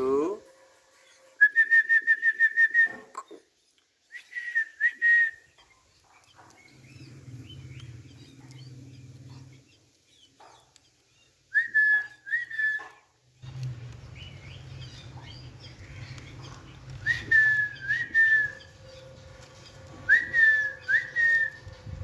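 Short, clear whistled notes, high-pitched and each dipping slightly in pitch: first a quick run of about eight, then pairs and triplets every few seconds. A low hum sounds behind them for stretches.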